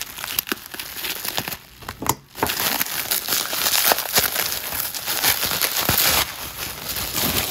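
Plastic bubble wrap crinkling and crackling as it is pulled and peeled off by hand, with a brief lull about two seconds in.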